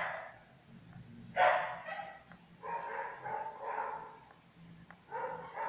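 Dachshunds locked in a mating tie, yelping and whining in several short bursts, the sharpest about a second and a half in and a longer whine around three seconds in.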